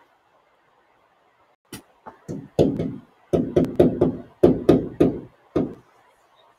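A quick, irregular series of about a dozen sharp knocks as a marker strikes the board while writing, starting after a second and a half of quiet, each knock with a short low ring.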